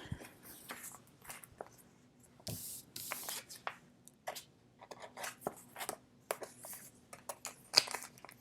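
Plastic card sleeves and stiff photo cards being handled and slid together: a string of short rustles, scrapes and crinkles, with a few sharper clicks.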